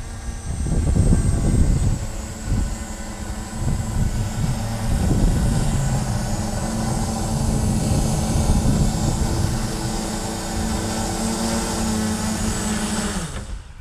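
QAV 540 quadcopter's electric motors and propellers running with a steady multi-toned buzz, with gusty rumble from wind on the onboard microphone. The sound cuts off abruptly near the end.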